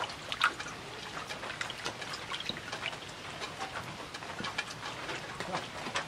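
Hand swishing and squeezing chopped ash gourd leaves in a bowl of water, with irregular small splashes and sloshing.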